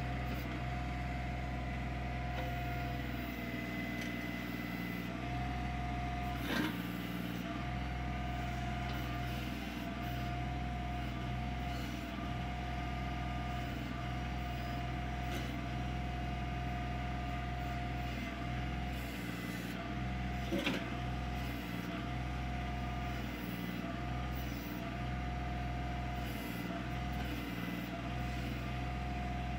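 Kioti CK25 compact tractor's three-cylinder diesel engine running steadily while its backhoe is worked, with a brief clunk about a quarter of the way in and another about two-thirds of the way through.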